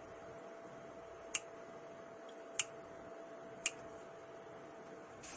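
Scissors snipping herb stems: three sharp snips about a second apart.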